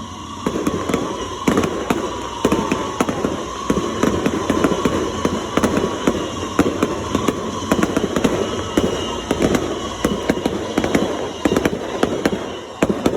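Fireworks display going off in rapid succession: a dense, continuous run of bangs and crackles that starts about half a second in.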